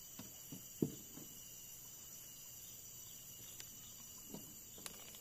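A few soft knocks and thumps on a small boat as someone shifts and handles fishing gear, the loudest about a second in and a couple more near the end, over a steady high-pitched drone of insects.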